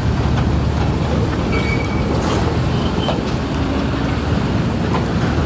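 Matador ME210LC-1 crawler excavator's diesel engine running steadily under load while it digs in a trench. Two brief high squeals come through, about a second and a half in and again about three seconds in.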